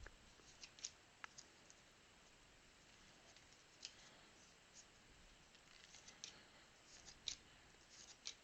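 Faint, scattered clicks and ticks of trading cards being handled and sorted, over near silence.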